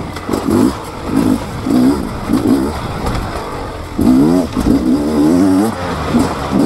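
Beta 300 RR two-stroke dirt bike engine, revving up and down in short spurts about twice a second as the throttle is worked on the trail, with one longer rise in revs about four seconds in.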